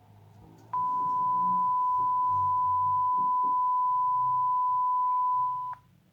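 Censor beep: a single steady, pure tone near 1 kHz, held for about five seconds; it starts abruptly under a second in and cuts off suddenly near the end.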